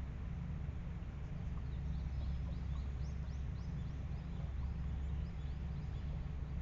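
Faint high chirps of small birds, a quick run of short notes in the middle, over a steady low rumble.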